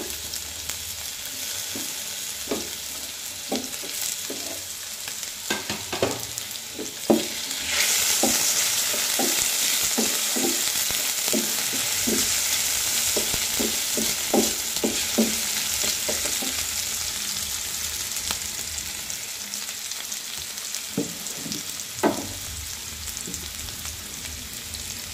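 Potato matchsticks sizzling in hot oil in a nonstick frying pan, with a wooden spatula knocking and scraping against the pan as they are stirred. The sizzle grows louder about eight seconds in and eases off again near the end.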